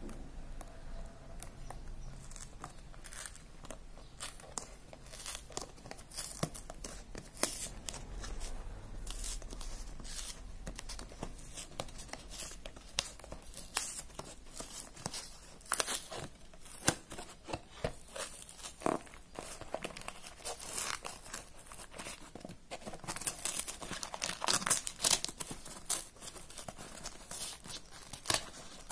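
Printed plastic wrapper being torn open and peeled off a cardboard box of chocolates: irregular crinkling and crackling, busiest a few seconds before the end.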